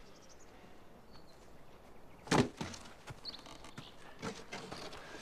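A single sharp wooden knock about two and a half seconds in, followed by a few fainter knocks.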